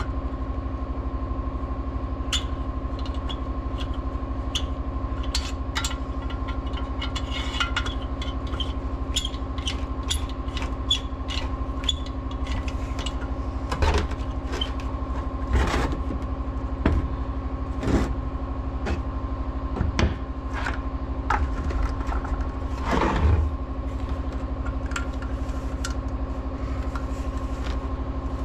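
A hand tool clicks, scrapes and knocks against the bolts and metal body of a Husqvarna 61 chainsaw as its muffler bolts are tightened. The clicks come irregularly and are heavier in the second half. Under them runs a steady mechanical hum that does not change.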